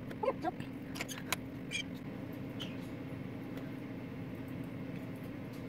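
Small pet parrots giving a few short, high chirps and squeaks over a steady low room hum.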